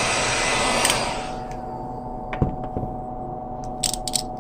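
Hot-air rework gun blowing with a steady rush, shut off about a second in so that the airflow dies away within half a second. After that a faint steady hum remains, with a few light clicks and taps.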